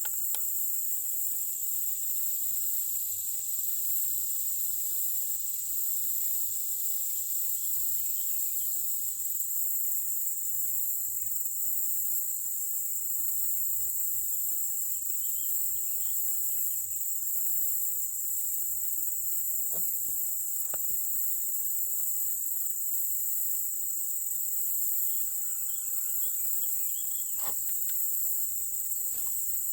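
Steady, high-pitched chorus of insects such as crickets, droning without a break. Faint short chirps and a few sharp clicks, twice about two-thirds of the way in and once near the end.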